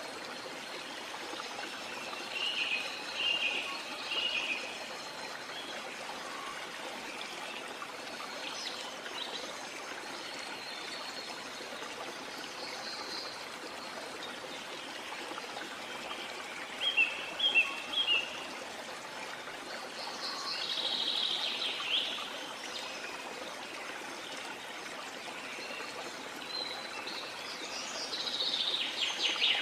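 Small birds chirping in short clusters several times, over a steady hiss that sounds like running water.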